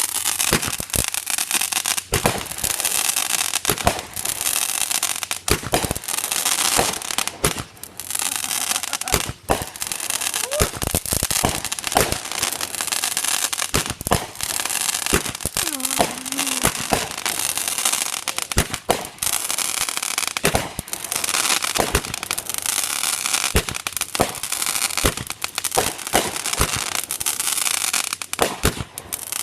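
A 'Brink of Disaster' consumer fireworks cake firing its finale: a rapid, continuous barrage of bangs from shots launching and bursting, over dense crackling.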